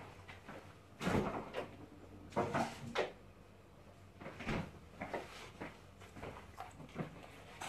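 Irregular clunks, knocks and rustling of things being handled and set down. The loudest knocks come about a second in and two or three times between two and three seconds in, with lighter ones after.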